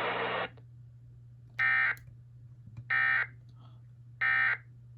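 Emergency Alert System end-of-message (EOM) data burst: three short identical bursts of digital data tones, each about a third of a second long and a little over a second apart, marking the end of the alert. Before them, a hiss of radio static cuts off about half a second in, and a faint low hum runs underneath.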